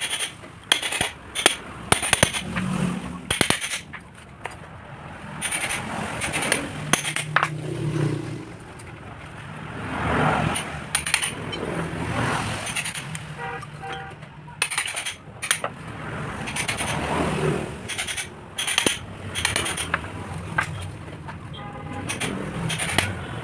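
Repeated sharp metallic clinks and knocks, some ringing briefly, as metal tools and parts are handled, over a changing low background noise.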